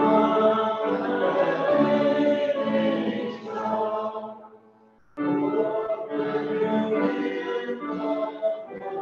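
Voices singing a hymn to keyboard accompaniment, with a brief pause between phrases about five seconds in.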